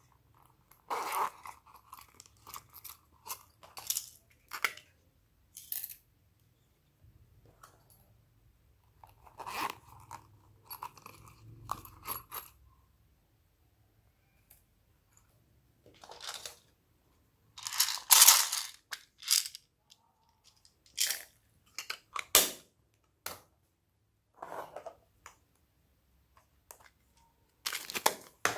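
Crinkling, clicking and rustling of plastic as small toys, charms and a plastic bag of foam beads are handled and set into a bowl of slime. The sounds come in separate short bursts with quiet gaps, and the loudest burst is a little past the middle.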